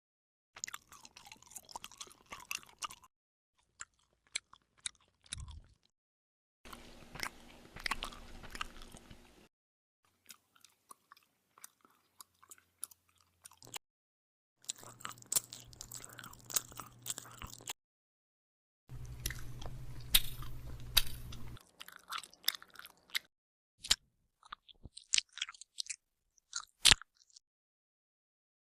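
Bubblegum being chewed with the mouth open: wet smacking and sharp clicks. It comes as a series of short takes of a few seconds each, separated by brief silences.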